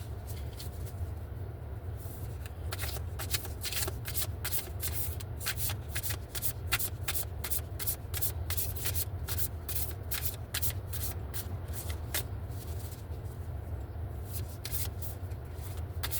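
Spirit Animal Oracle card deck being shuffled by hand: a long, quick run of card flicks and clicks that grows denser a few seconds in, over a steady low hum.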